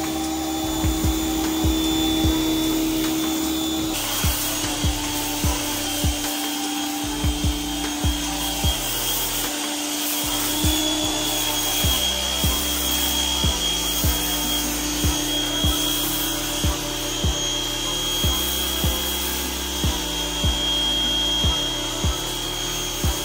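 Background music with a steady beat over the running whine of a small electric pressure washer's motor and the hiss of its spray. The whine changes pitch about four seconds in and again near the middle.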